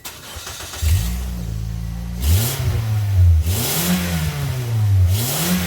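2008 Toyota Yaris's four-cylinder engine running and revved three times. Each rev brings a loud, harsh blatting hiss from a leaking front exhaust gasket between the exhaust manifold and the front pipe, the leak the owner suspects. It gives the car a "fart can" sound.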